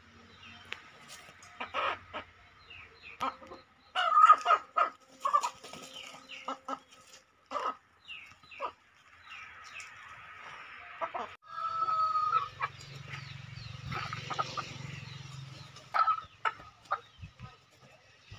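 Chickens clucking, with runs of short, sharp calls and a longer held call about twelve seconds in.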